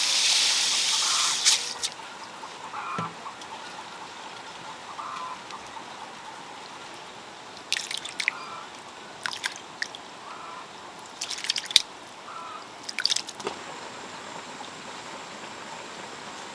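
Water pouring for about a second and a half, then a few short scattered clicks and drips.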